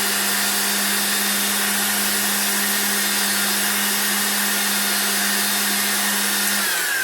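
Zelmer washing vacuum cleaner's motor and fan running at full speed on a test run after a bearing replacement: a steady high rushing whine with a steady hum under it. Near the end the pitch starts to fall as the motor begins to wind down.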